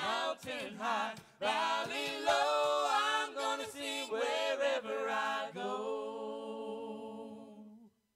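A small group of men and women singing a cappella into microphones, closing the song on one long held final note that stops shortly before the end.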